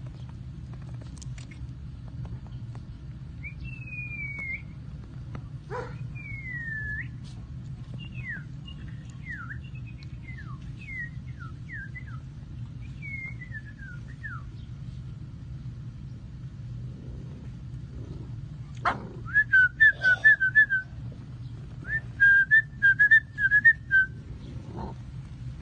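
Tibetan mastiff puppies whining: a string of high, falling whines, then near the end quick runs of louder, rapid whimpers and yelps, over a steady low hum.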